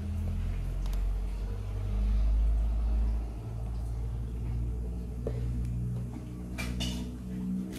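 Low rumble of a motor vehicle engine nearby, loudest about two to three seconds in, with a brief rustle near the end.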